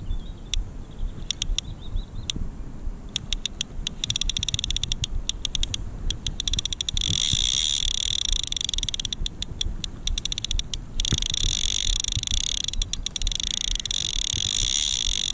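A fishing reel's clutch giving line to a hard-running hooked barbel. It ticks in runs of rapid clicks, then from about seven seconds in the clicks merge into a continuous high-pitched buzz that breaks off briefly near eleven seconds and starts again.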